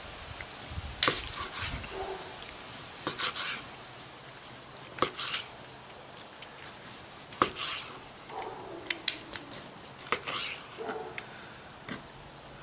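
A long slicing knife cutting through smoked brisket, with scattered sharp clicks and taps from the knife and metal tongs against a plastic cutting board.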